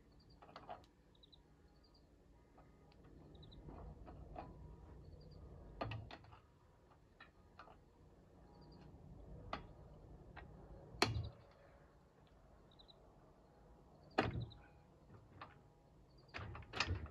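Scattered metallic clicks and knocks from work on a seized, stripping nut on a snow plow's steel frame, a second or more apart; the loudest knock comes about eleven seconds in. Birds chirp faintly.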